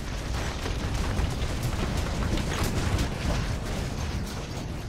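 Film sound effects heard through the Dolby Atmos overhead channels alone: a deep rumble with scattered crackles and pops, easing off near the end.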